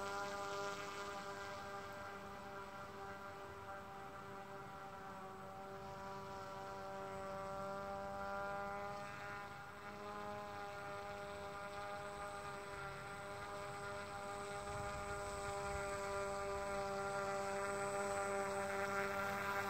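Hand-made RC fan boat's motor and air propeller running at a steady speed, a steady hum with a fixed pitch. It is fainter in the first half and grows louder toward the end as the boat comes closer.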